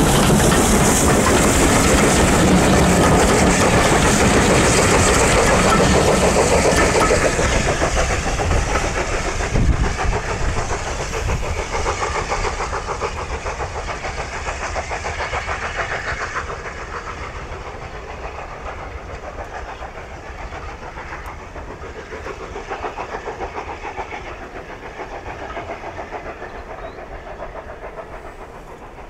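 Steam train running past, loudest in the first few seconds and then fading steadily as it draws away.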